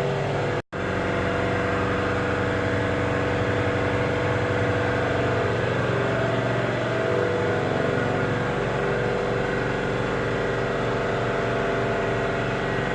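Steady hum of running machinery, unchanging throughout, with several constant tones in it. A brief cut to silence comes just under a second in.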